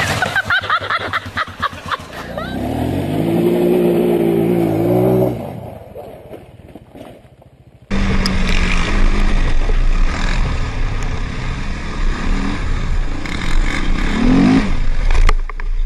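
ATV engine revving, its pitch rising and falling, then fading away. About eight seconds in the sound cuts abruptly to a louder, rougher engine running, with a short rising rev near the end.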